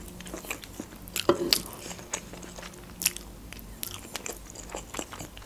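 Close-miked chewing of a mouthful of fried sausage: a string of small irregular clicks and smacks from the mouth.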